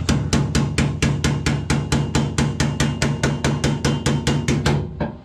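Ball-peen hammer striking a steel bracket on a car's sheet-steel trunk floor pan in a rapid, even run of blows, about five a second, each with a short metallic ring. The blows pause briefly near the end.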